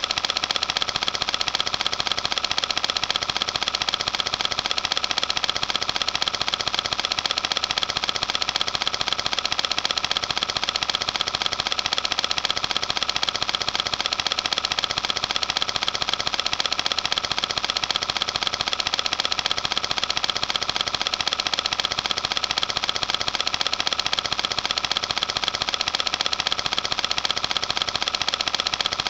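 Film projector running: a steady, rapid mechanical clatter that does not change.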